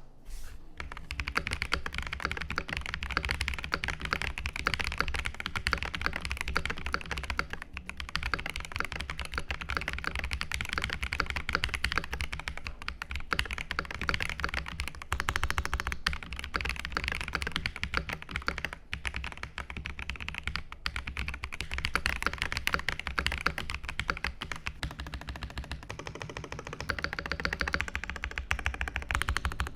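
Fast, continuous typing on a Keychron V2 Max mechanical keyboard: dense key clacks and thocks with a few brief pauses.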